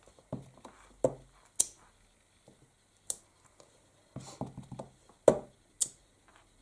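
Clear acrylic stamp block tapped on an ink pad and pressed down onto paper on a cutting mat: a series of sharp taps and knocks, with a quick flurry of small dabbing taps just after four seconds in.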